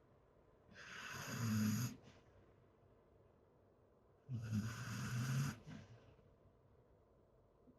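A beagle with rhinitis snoring in its sleep: two snores a few seconds apart, each a little over a second long, a low tone with a hissing rasp over it.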